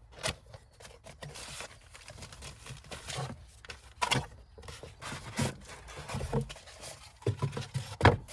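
Hands handling plastic parts and packaging: scattered light clicks and knocks with rustling, and a sharper knock near the end.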